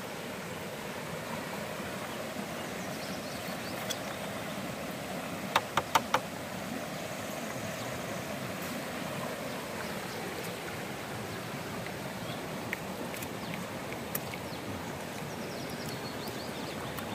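Steady rushing of a stream flowing over rocks, with a quick run of about four sharp clicks about six seconds in.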